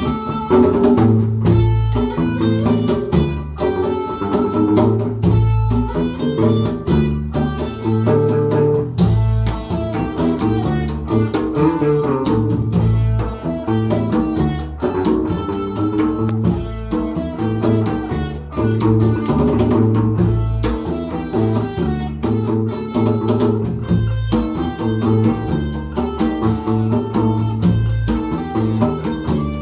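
Instrumental jam of a guitar, a bass guitar and hand drums (conga and djembe), played live together. The bass notes run steadily under the guitar, with regular hand-drum strokes.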